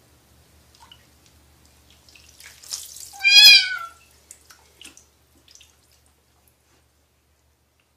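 A cat being bathed in a basin of water gives one loud, wavering meow about three seconds in, with water splashing just before it. A few small splashes and knocks follow as the cat struggles.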